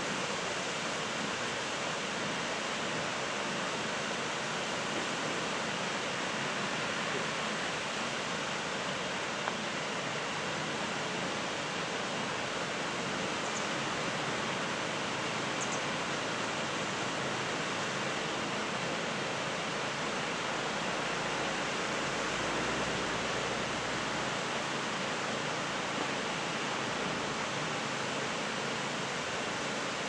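Steady rushing of a tall waterfall plunging down a rock face into its pool.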